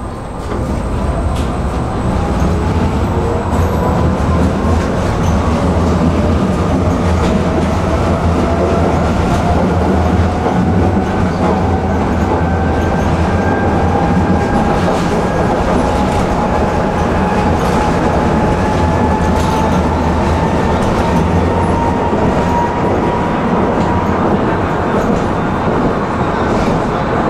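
Electric tram moving off and running along the track, its traction motors whining in a tone that rises steadily as it gathers speed and then levels off at cruising speed. Steel wheels rumble on the rails underneath, with occasional faint clicks.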